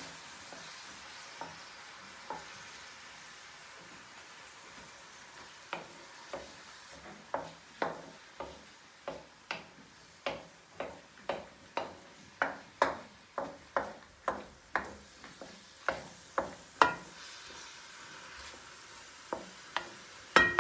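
A wooden spoon knocking and scraping against a metal wok while stirring, about twice a second through the middle, over the faint sizzle of onion, garlic and diced tomatoes frying.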